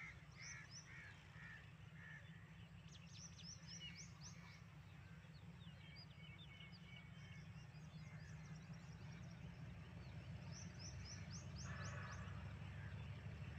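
Small birds chirping in short repeated runs over a faint, steady low rumble of a distant GEU40 diesel locomotive approaching, the rumble growing slightly louder near the end.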